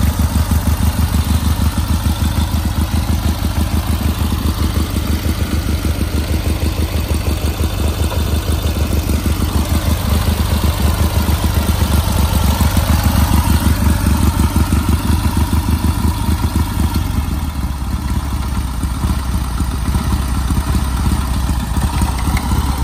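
1941 BMW R12's side-valve flat-twin engine idling with an even, rapid beat. The idle settles a little lower about three-quarters of the way through.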